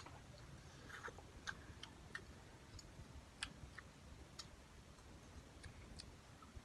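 Faint, irregular small clicks and smacks from eating instant cup noodles, a dozen or so scattered over a few seconds.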